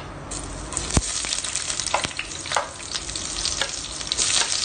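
Sliced onion, green chillies and garlic dropped into hot oil with fenugreek seeds in a stainless steel pan, starting to sizzle about a third of a second in and frying on loudly, with a few sharp knocks, the loudest about a second in.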